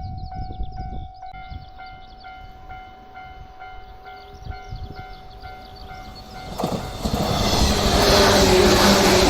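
Electronic level-crossing warning bell ringing about twice a second. About seven seconds in, a Sanyo Main Line train arrives and passes over the crossing with a loud rush of wheel and rail noise that drowns the bell.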